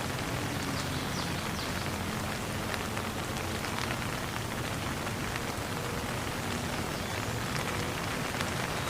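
Steady hiss of falling water, even and unbroken, with a few faint short high chirps now and then.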